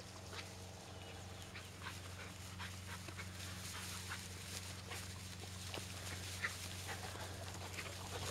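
Setter puppy moving through dry grass: scattered rustles and footfalls over a steady low hum.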